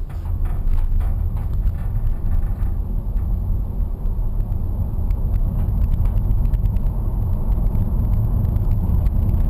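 Road and tyre rumble heard inside the cabin of a stretched, electric Nissan Leaf limousine as it drives, building over the first second and then holding steady, with scattered small clicks.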